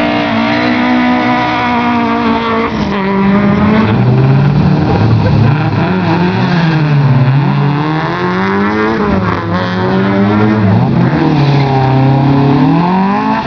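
A race-prepared Peugeot 205's four-cylinder engine idling and being revved up and down again and again, with another small race car's engine running alongside.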